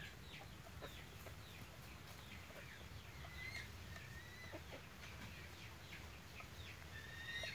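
Hens in a run calling softly: a faint, steady stream of short high clucks and chirps.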